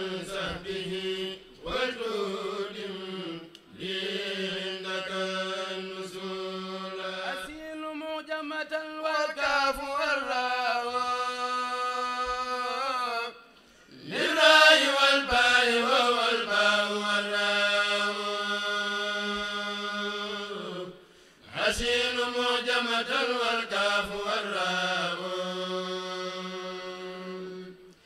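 Unaccompanied male voices chanting a Mouride khassida, with long held, slowly gliding notes. The phrases break off briefly about 13 seconds and 21 seconds in before the chant resumes.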